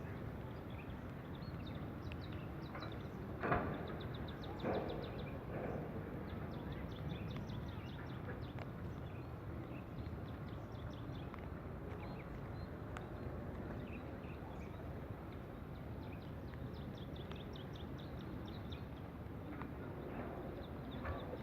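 Steady outdoor background noise with faint, rapid chirping trills recurring throughout and a few sharp knocks about three and a half and five seconds in.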